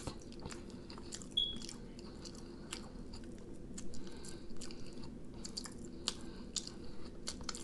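Close-up chewing and mouth smacking while eating, a string of small irregular wet clicks with a brief squeak about a second and a half in.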